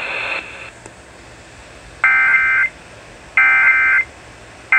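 Emergency Alert System end-of-message code: buzzy digital data bursts, each about half a second long and repeated about every 1.3 s (twice, with the third starting near the end), signalling that the warning broadcast is over.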